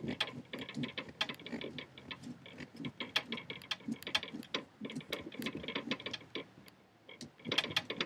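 A small carving saw working through a pumpkin's wall: a rapid, irregular run of ticks and scrapes, several a second, busier near the end.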